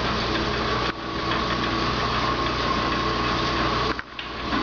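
Belt-driven overhead line shafting running steadily: the shaft, pulleys and leather belts turn with a continuous mechanical whir and a constant high hum. The sound dips briefly near the end.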